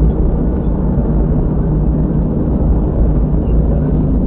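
Steady low rumble of a vehicle's engine and road noise, heard from inside the cab while driving.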